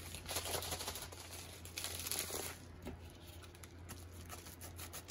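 Padded kraft mailer crinkling as it is handled, with small scissors snipping into its end near the end.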